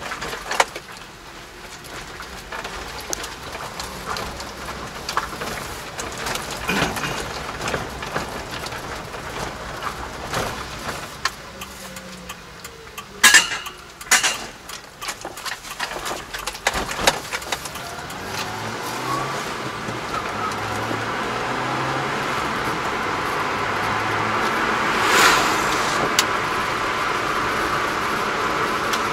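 Kei mini truck's engine and road noise heard from inside the cab. Scattered knocks and rattles come as it rolls slowly across the yard, with two sharp knocks about halfway through. In the second half it accelerates along the road, and the engine note climbs in steps through the gears under a rising steady hiss of tyres and wind.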